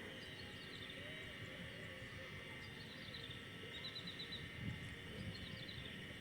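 Outdoor ambience: birds chirping in short quick series over a steady high-pitched hum.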